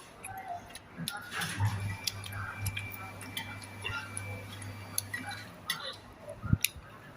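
Scattered light clicks and taps, with a low steady hum for a few seconds in the middle.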